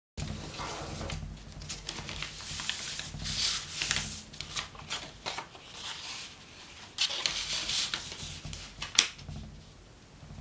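A long strip of stiff elephant hide paper being folded and creased by hand: rustling swishes as the hands slide and rub along it, with sharp crinkles and crackles. The loudest is a snap about nine seconds in.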